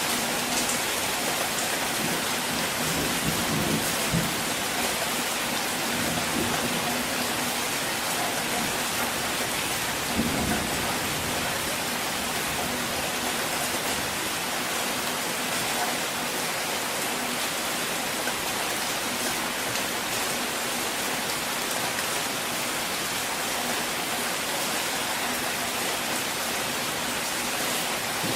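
Steady rain drumming on a car, with thunder rumbling low a few times in the first half, most plainly about ten seconds in.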